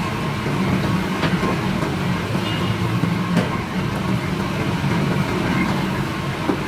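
Factory machinery running steadily: a continuous low mechanical rumble with a faint steady hum above it and a few light clicks.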